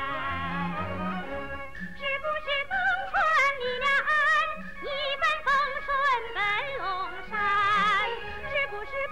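A high woman's voice singing a Chinese opera aria with wide vibrato and long held, gliding notes, over instrumental accompaniment with low notes underneath.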